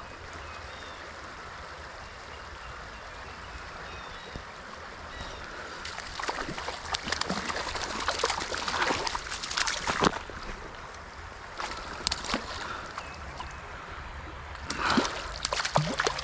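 Creek water running steadily, then from about six seconds in irregular splashes and knocks, typical of someone wading through the stream.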